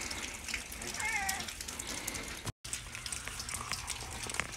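One short, wavering animal call about a second in, over steady outdoor background noise with scattered faint ticks. The sound drops out for a moment about two and a half seconds in.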